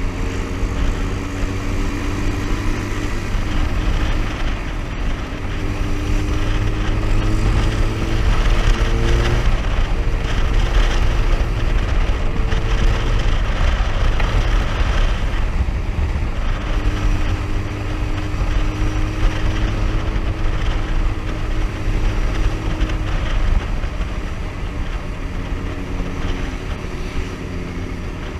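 Faired sport motorcycle ridden at road speed, its engine running under heavy wind noise. The engine note climbs steadily for about the first nine seconds as it accelerates, drops away, then holds a steady pitch later on.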